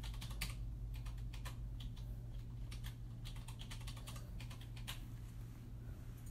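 Typing on a computer keyboard: quick, irregular key clicks, some in fast runs, over a low steady hum.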